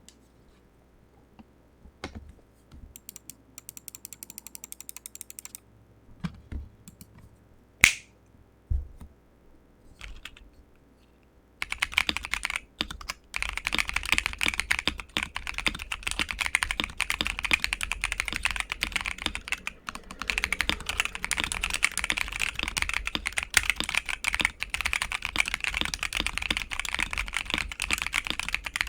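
Typing on an ASUS ROG Azoth mechanical keyboard with ROG NX Red linear switches, a polycarbonate plate and layers of foam and PET-film dampening. For the first twelve seconds or so there are only scattered key clicks and a brief run of rapid, even ticks. After that comes steady, fast continuous typing.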